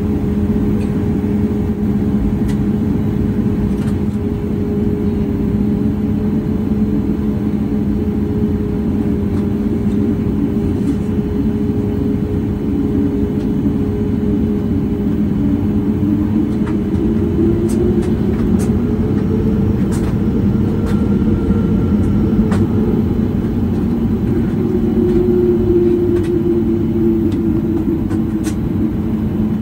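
Cabin drone of a Boeing 737 MAX 8-200 with its CFM LEAP-1B engines running at idle, heard inside the cabin. It is a steady hum whose pitch rises for a few seconds past the middle and then settles back, as thrust is added to begin taxiing.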